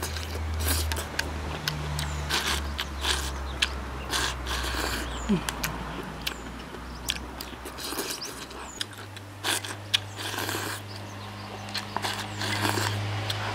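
Someone eating soup-soaked rice from a ceramic bowl: bamboo chopsticks click and scrape against the bowl rim as mouthfuls are shovelled in, slurped and chewed. A steady low hum runs underneath.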